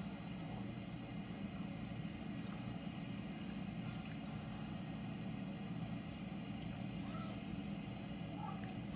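Large harvest machinery running steadily in a wheat field, a constant low engine drone with no change.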